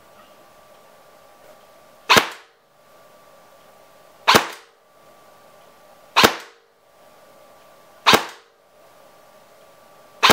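Airsoft electric rifle (AEG) firing single BB shots, five sharp reports about two seconds apart, each with a short decay. The rifle has no velocity-reduction adapter fitted and is shooting at about 328 fps.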